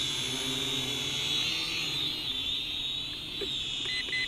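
Eachine E32HW micro quadcopter hovering, its small motors and propellers giving a steady high whine that wavers in pitch. Two short beeps near the end.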